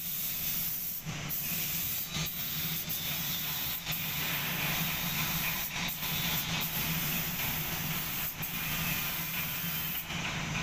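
Compressed-air paint spray gun hissing as it sprays paint, the hiss breaking off briefly several times and dropping away near the end. A steady low hum runs beneath.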